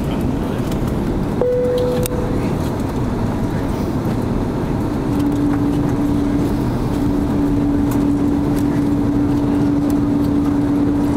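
Steady roar of airflow and engine noise inside the cabin of an Airbus A340-600 on descent, a four-engine Rolls-Royce Trent 500 airliner. A steady low whine comes in about five seconds in and holds, and a brief higher tone sounds about two seconds in.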